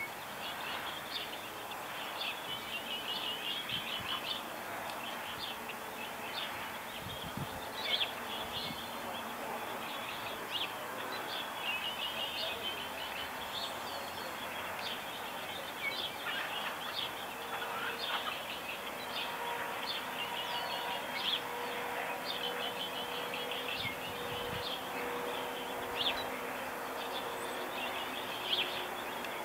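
Several birds chirping and trilling, many short calls overlapping, over a steady outdoor hiss. A faint steady hum joins partway through.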